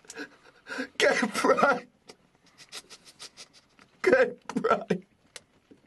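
A man sobbing: two loud bursts of crying with short, sharp sniffs and gasps between them.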